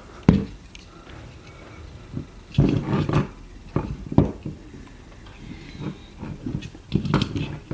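Irregular knocks, clicks and rustles of hands handling a model locomotive and its DCC chip wiring close to the microphone, in a few bunched bursts with quieter stretches between.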